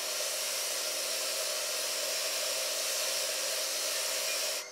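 Variable-speed bench polisher spinning an 80-grit 3M radial bristle disc against the silver tang of a fish slice: a steady abrasive hiss over a faint motor hum, as the disc strips old glue, shellac and corrosion off the tang. It cuts off sharply near the end.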